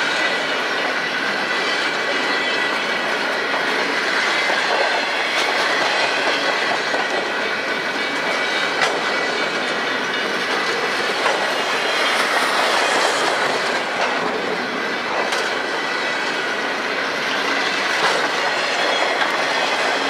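Freight train flatcars rolling past close by: steel wheels on rail with a steady high squeal and occasional clicks over rail joints.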